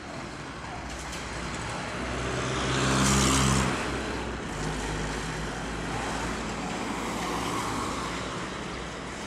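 Heavy diesel engine idling steadily, with a vehicle passing close by about three seconds in, rising and then fading.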